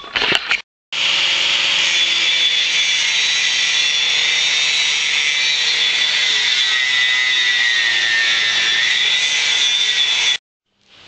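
A power tool machining a metal pipe piece makes a loud, steady metal-on-metal screech with a high whine through it. The whine dips slightly in pitch near the end, and the sound cuts off abruptly.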